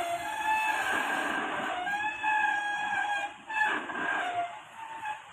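A rooster crowing several times in a row, each crow a held call that drops in pitch at its end, with a forklift engine running low underneath.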